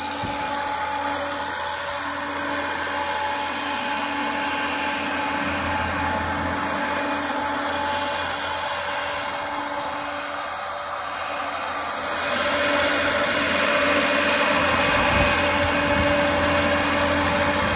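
Old engine-driven farm blower running steadily, its fan pushing a rush of air, mixed with the running engine of the JCB telehandler that holds it. The noise steps up louder about twelve seconds in.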